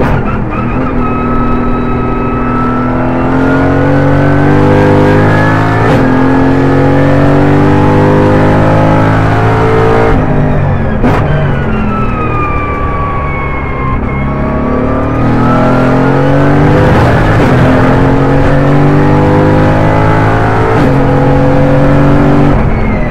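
Mercedes-AMG GT4's twin-turbo V8 heard from inside the cockpit at racing speed, its pitch climbing and falling through the corners with sharp breaks at gear changes about 6 and 11 seconds in. A high whine falls and rises again in the middle.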